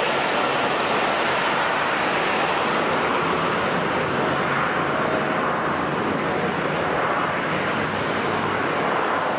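Jet airliner engines making a steady, even rushing noise that holds without a break.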